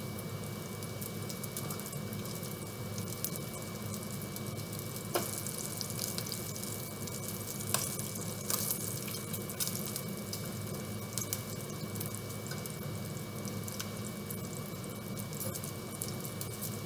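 Strips of pepper bacon sizzling steadily in a nonstick frying pan, with a few sharp clicks as a fork turns them.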